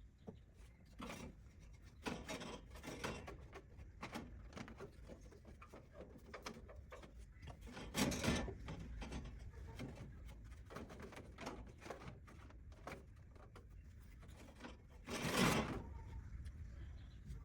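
Hand scraping and rubbing on a part, in many irregular strokes, with two louder, longer scrapes about eight seconds in and near the end.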